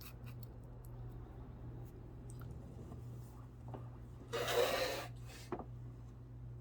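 A single sneeze about four seconds in, lasting under a second, over a steady low hum, with a few faint clicks in the first second.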